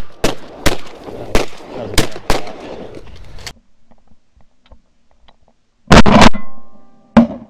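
A rapid volley of shotgun shots from several hunters firing at geese: about six shots in the first three and a half seconds, each with a short echo. After a brief lull come two more loud shots close to the microphone near the end.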